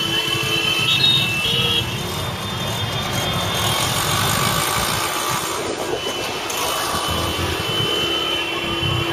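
Road traffic with vehicle engines running, under a steady high-pitched electronic ambulance siren tone that steps up briefly about a second in.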